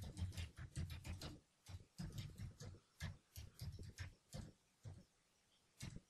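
Typing on a computer keyboard: a quick run of keystrokes for about a second and a half, then keys struck singly or a few at a time with short pauses between.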